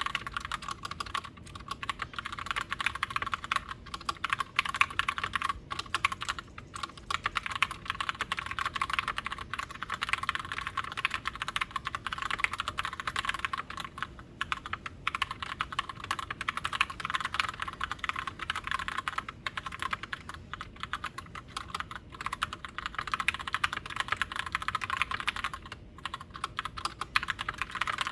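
Steady fast typing on a Glorious GMMK White Ice TKL mechanical keyboard with Gateron Brown tactile switches: a dense run of key clicks, with a couple of brief pauses.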